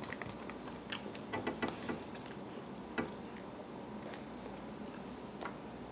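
Fork clicking and scraping against a clear plastic food container as food is scooped up, a few light taps spread out, with a small cluster about a second and a half in.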